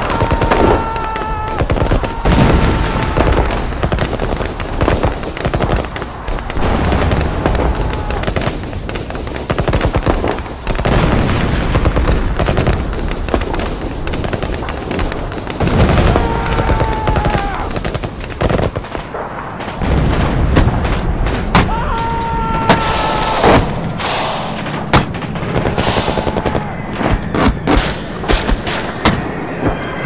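Battlefield sound effect: continuous rifle and machine-gun fire crackling with low booms of explosions. Short high calls rise above the firing several times.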